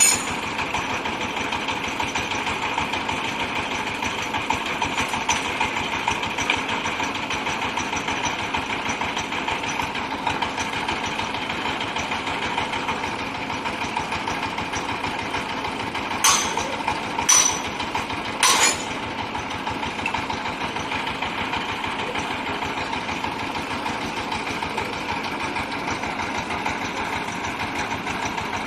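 Compressed-air well-drilling rig running steadily, a continuous mechanical din from its engine-driven compressor and rock drill. Around the middle come three short, loud bursts of noise about a second apart.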